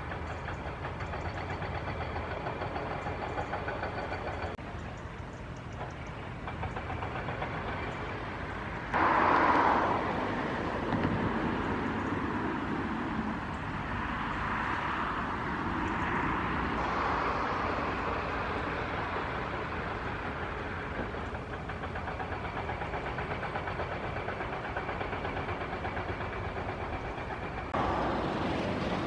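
Steady engine and traffic noise with a low rumble. It jumps suddenly in level about nine seconds in and again near the end, and there is a passing sound that dips and then rises in pitch.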